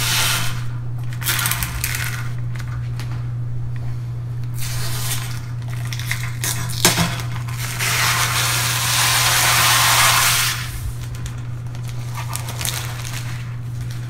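Protective plastic film being peeled off a tempered glass case panel, crinkling and rustling in several pulls, loudest about eight to ten seconds in, over a steady low hum.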